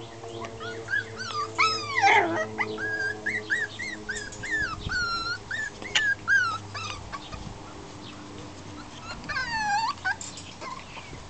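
Miniature schnauzer puppies whimpering and yipping: a run of short, high-pitched whines through the first seven seconds, some gliding sharply down, then another cluster of falling whines near the tenth second. A steady low hum sits underneath and stops about seven seconds in.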